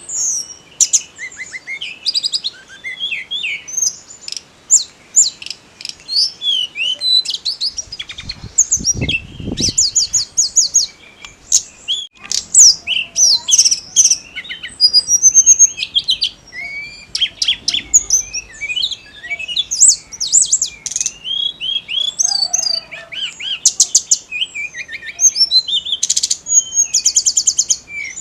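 Tledekan gunung singing continuously in full voice: a fast, varied stream of high chirps, sweeping whistles and rapid rattling note-series. A brief low rumble sounds about eight seconds in.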